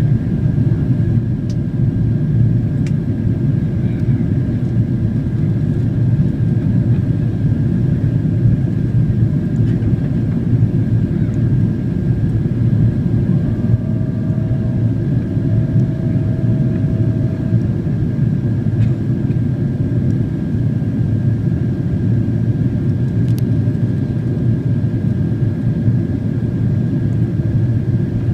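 Cabin noise inside a Boeing 767-400ER on approach: the steady roar of its General Electric CF6 turbofans and the airflow, with a thin steady high whine.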